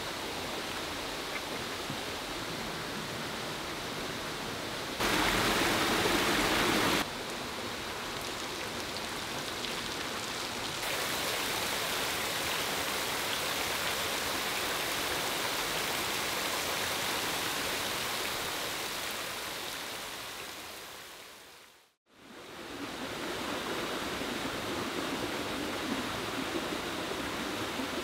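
Steady rush of running and falling water in several edited stretches: a rocky stream, then a shower of water pouring down from bamboo tubes as artificial rain, which fades out to silence and back in as a small waterfall splashing over rocks. A louder two-second burst of splashing comes about five seconds in.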